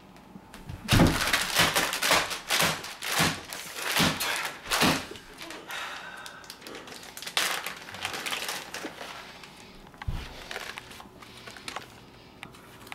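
Plastic bag of shredded cheese crinkling as it is grabbed, squeezed and shaken, in a run of loud sharp bursts for a few seconds, then softer rustling. A single dull thump about ten seconds in.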